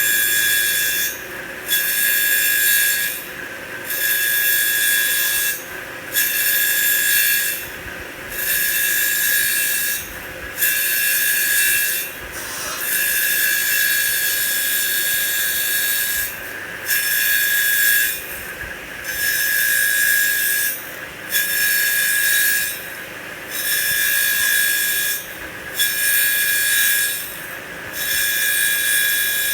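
CNC wood lathe cutting wooden beads: a high, scraping whine of the cutter on the spinning wood, in repeated cuts every two seconds or so with brief dips between as it moves on.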